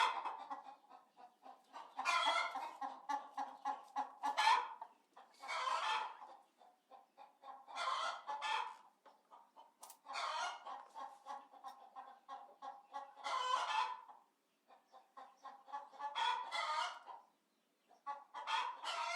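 Chickens clucking: repeated runs of quick clucks broken by louder calls, a new group coming every two to three seconds.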